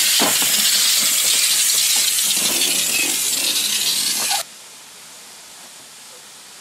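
Hunslet quarry saddle tank steam locomotive hissing loudly as steam blows out beside its cylinders, with some light knocks underneath. The hiss cuts off suddenly about four seconds in, leaving only a faint steady hiss.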